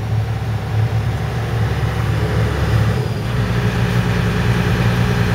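John Deere excavator's diesel engine running steadily, its note shifting slightly about three seconds in.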